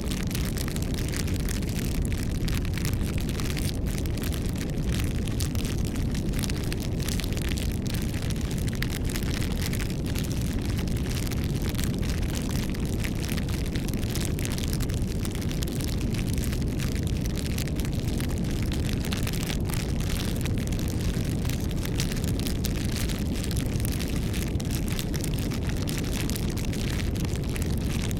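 Campfire burning: a steady low rush of flames with many sharp crackles and pops of burning wood.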